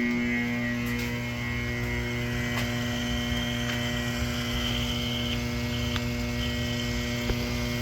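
Electric pump running with a steady electrical hum, switched back on at its breaker, with a faint high whine over it for a few seconds in the middle.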